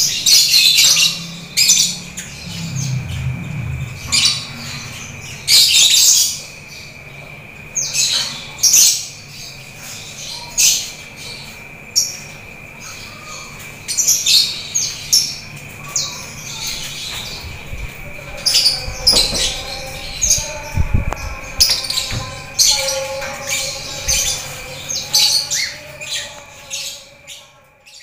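Domestic canary singing vigorously: repeated loud bursts of high chirps and trills, with a steady high tone underneath.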